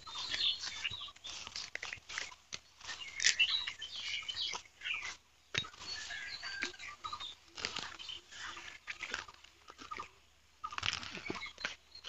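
Irregular crunching and rustling of plants being handled at ground level, in quick crackles with two short pauses.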